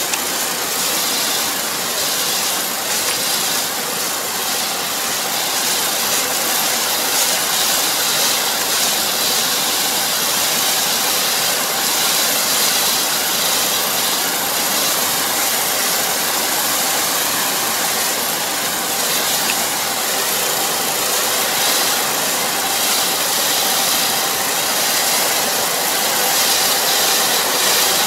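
Kubota ER470 four-row combine harvester running steadily, an even hissing machine noise with a faint steady hum underneath.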